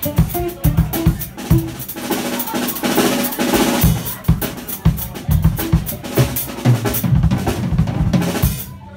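Drum kit played live with rapid kick and snare hits and cymbals, over electric guitar. The cymbals and snare thin out briefly near the end.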